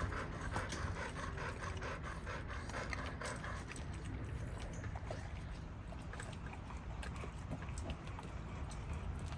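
Dogs eating raw meat from bowls: wet chewing, smacking and licking, quick and fairly regular for the first few seconds, then more scattered, over a low rumble.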